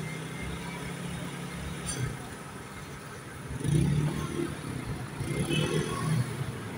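Motor vehicle engines running close by, from idling garbage trucks and scooters moving among them. A steady low hum swells about halfway through and again near the end.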